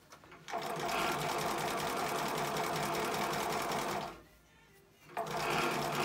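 Juki LU-563 industrial walking-foot leather sewing machine stitching a seam through hide, running steadily for about three and a half seconds, stopping for about a second, then starting again.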